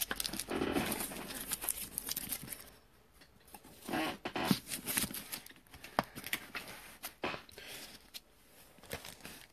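Faint, scattered small clicks and light rustling of handling, several separate ticks with short quiet gaps between.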